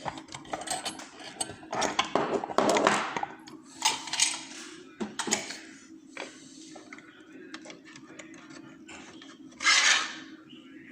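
Small metal clicks and scraping as a just-opened lock and metal tools are handled, busy in the first half and sparser after, with one louder rubbing rasp near the end.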